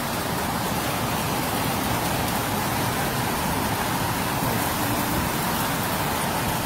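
Heavy downpour mixed with small hail falling on roofs and a sheet awning, a steady, even hiss.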